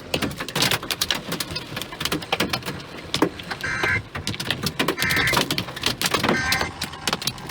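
Large hail pelting a car's roof and windows: a dense, irregular clatter of many hard hits.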